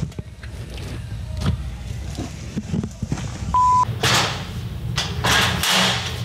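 Boxes and plastic packaging rustling and knocking as items are handled, then a short high electronic beep about three and a half seconds in. After that, a manual pallet jack rattles and rolls across a concrete warehouse floor in several noisy bursts.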